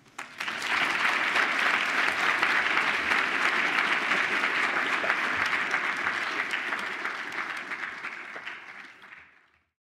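Audience clapping, a dense patter of many hands that holds steady, then dies away and stops about nine and a half seconds in.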